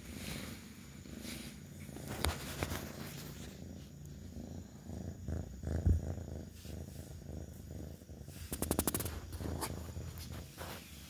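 Kitten purring close to the microphone, a steady low rumble. Over it come a few knocks, a loud thump about six seconds in, and a quick rattle of clicks near the end as the kitten's body brushes the microphone.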